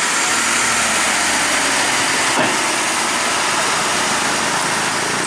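Loaded Hino truck's diesel engine pulling steadily uphill as the truck passes close by, with a constant rushing noise over the engine. There is one short knock about two and a half seconds in.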